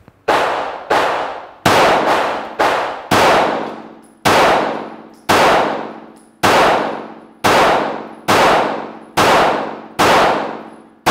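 About a dozen 9mm shots from a Ruger Security 9 Compact pistol firing Federal 124-grain HST hollow points, each report ringing out in the indoor range. The first shots come quickly, about half a second apart, then slow to about one a second.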